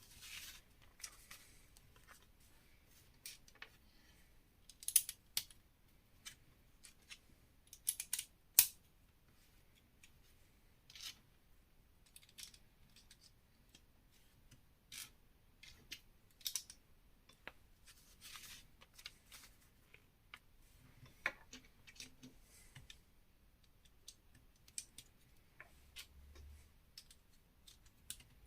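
Lego bricks being handled and pressed together: scattered plastic clicks and short rattles at an uneven pace, with the sharpest snaps about 5 and 8 seconds in.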